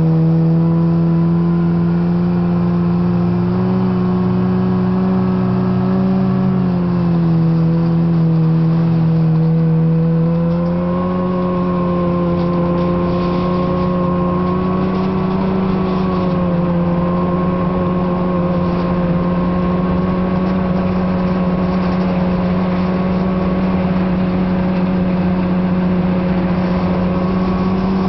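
Snowmobile engine running at steady travelling speed. Its pitch eases up in the first seconds, dips about seven seconds in, picks up again a few seconds later and then holds steady.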